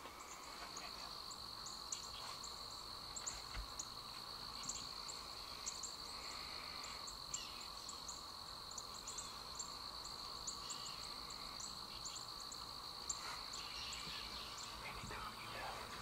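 Outdoor chorus of insects: a steady, high-pitched drone with a fainter lower hum beneath it, dotted with many short, high bird chirps.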